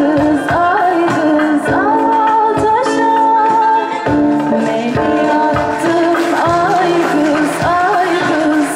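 A girl singing a wavering, ornamented melody into a microphone, with a live band and a steady percussion beat behind her.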